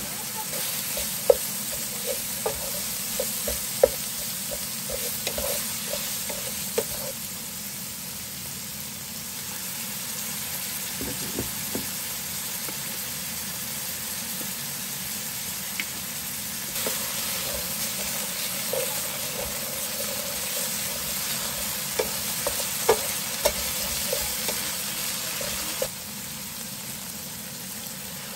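Shaved beef sizzling in an electric skillet while a wooden spatula stirs it, with a scatter of sharp knocks against the pan in the first seconds and again near the end. The sizzle drops a little in the last couple of seconds.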